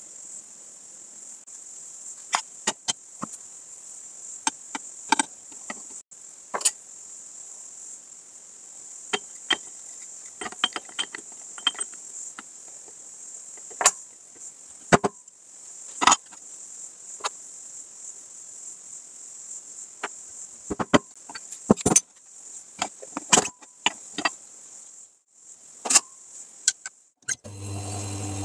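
Metal espresso tools handled on a counter: scattered clicks and taps from the dosing cup, dosing funnel and portafilter, over a steady high-pitched whine. Near the end the Lelit Bianca espresso machine's pump starts with a low, steady hum as the shot begins.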